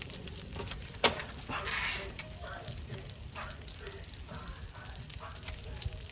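Smash burgers frying with a steady sizzle. A sharp click about a second in is followed by a brief louder burst of sizzling.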